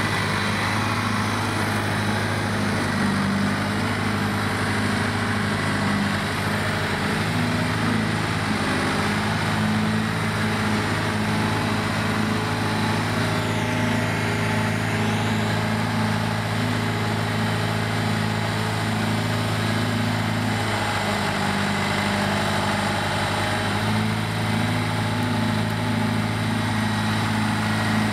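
Engine of a backhoe loader running steadily as it carries a large hay bale in its raised front bucket, with a slight change in its note a little after twenty seconds. A faint high whine dips and rises around the middle.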